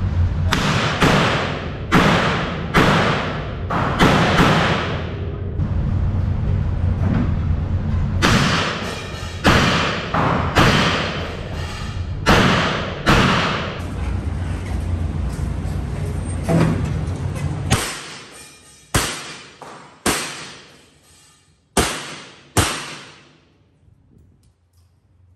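Revolver shots fired in irregular strings, some in quick pairs, more than a dozen in all, each sharp crack ringing out in an echoing indoor range. A steady low rumble lies under the shots until about two-thirds of the way through, then stops suddenly.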